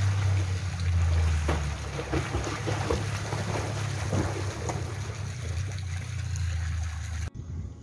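Water splashing as a swimmer strokes and kicks across a pool, over a steady low rumble; the sound cuts off suddenly near the end.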